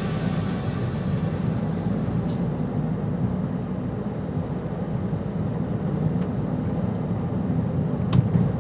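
Steady low rumble of a jet aircraft high overhead, with one sharp click near the end.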